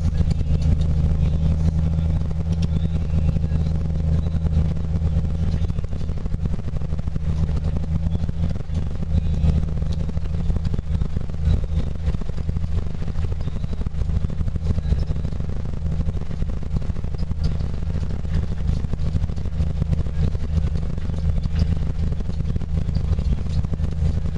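Snowcat engine running steadily under load, with a constant low drone heard from inside the cab and light rattling throughout.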